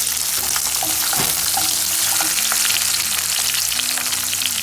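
Chopped onion frying in hot oil with spices in a pan, a steady crackling sizzle with stirring.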